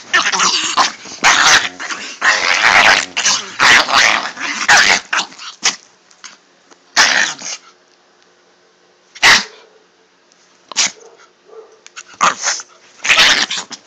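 Pomeranian play-growling in rapid bursts for about five seconds, then a few short, separate barks spaced a second or two apart.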